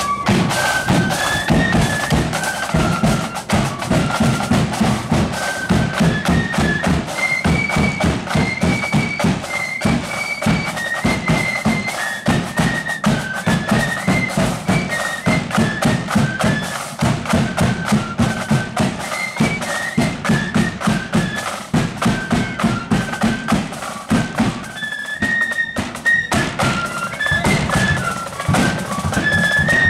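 Marching flute band playing a tune: many flutes together carry a high, stepping melody over a steady, driving drumbeat.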